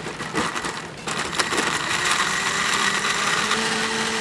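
The lid of a countertop blender knocks into place. About a second in, the motor starts and runs steadily, blending taro milk.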